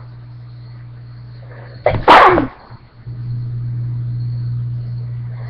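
A person sneezes once, about two seconds in: a short breath-in, then a loud, sudden 'choo' whose pitch falls away. A steady low hum runs underneath.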